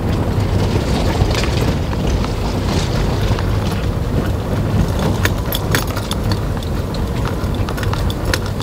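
Car driving slowly over a gravel dirt road, heard from inside the cabin: a steady low rumble from the engine and tyres, with frequent small clicks and rattles as stones crunch under the wheels.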